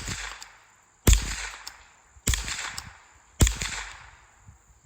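Three shots from a Tanfoglio Appeal .22 WMR semi-automatic bullpup rifle, fired about a second apart, each trailing off in an echo.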